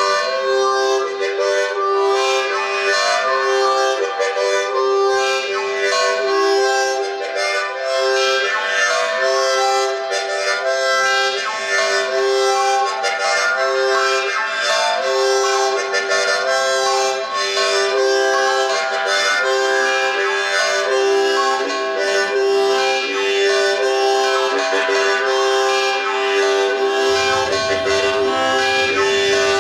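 Harmonica playing a folk tune in chords, a held note sounding under changing higher notes.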